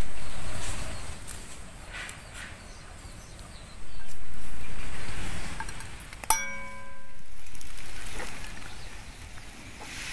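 Three swells of rushing noise that rise and fade, and about six seconds in a single metallic clink with a short ring, as a knife touches a steel bowl while green chillies are cut into it.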